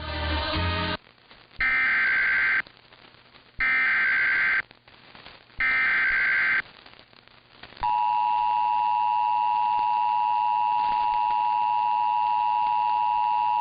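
Emergency Alert System data header: three warbling data bursts about a second apart. They are followed, about 8 seconds in, by the steady two-tone EAS attention signal (853 and 960 Hz together), which signals an alert about to be read. A brief noisy crackling burst comes in the first second.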